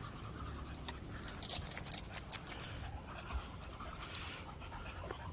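A dog panting, with a quick run of light, high clicks and jingles between about one and three seconds in.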